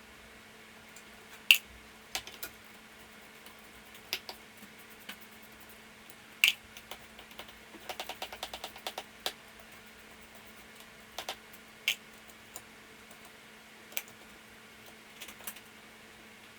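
Scattered sharp clicks and clinks of hand tools and small metal engine parts being handled during the teardown of an old Murray mower engine, with a quick run of about a dozen clicks in a row around the middle.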